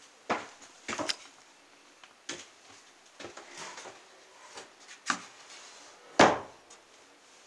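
Footsteps and light knocks on the wooden boards of a small timber barrel sauna, with a heavier wooden thump about six seconds in.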